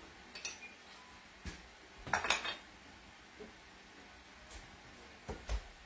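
A few light clinks and knocks of kitchen utensils, the loudest a short clatter about two seconds in, with two more near the end.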